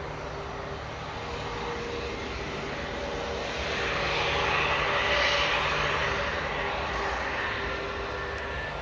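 Airbus A340-600's four Rolls-Royce Trent 500 turbofan engines running as the airliner rolls past close by on the runway, a steady jet roar and whine that swells to its loudest about five seconds in and then eases as it moves away.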